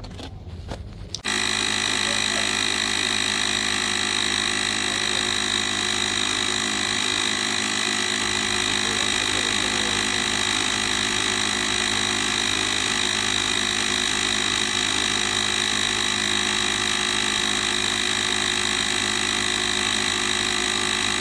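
The UIBI X5 jump starter's built-in air compressor switches on about a second in and runs with a steady, even drone.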